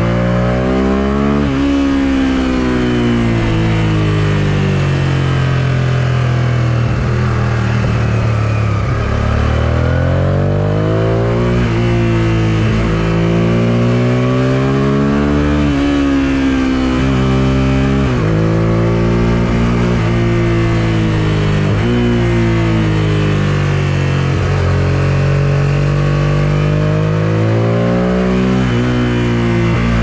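Suzuki SV650S's 645 cc V-twin engine ridden hard through a series of bends. It revs up under throttle, pitch climbing, then falls back several times, sometimes sharply and sometimes gradually as the throttle is eased.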